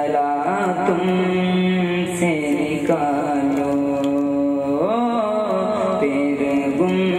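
A man's voice singing an Urdu naat without accompaniment, heard through a microphone. He draws out long held notes that slide up and down in pitch.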